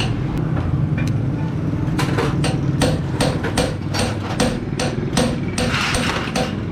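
Hammer striking metal in quick even blows, about four a second from about two seconds in, after a few slower strikes. Under it is a steady low machine hum.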